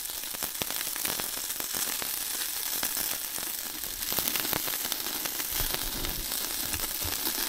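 Meat sizzling on a grill: a steady hiss dotted with many sharp crackles, getting a little louder about halfway through.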